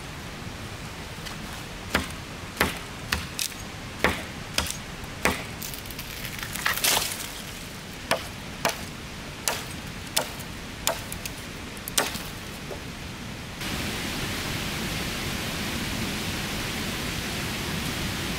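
A run of about a dozen sharp chopping strikes, one every half second to a second, over a faint background hiss. About two-thirds of the way through they stop and a louder steady hiss like rain comes in suddenly.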